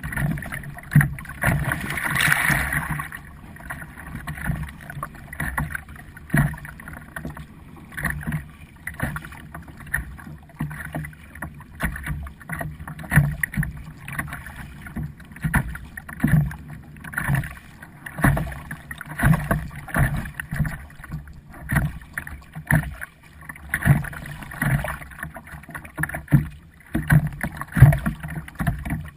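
Kayak paddling: regular paddle strokes about a second apart, with water splashing and dull knocks, and a longer splash about two seconds in.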